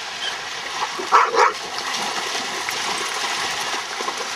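A dog barks twice in quick succession about a second in, at a ball about to be thrown for fetch, over the steady wash of small lake waves on the shore.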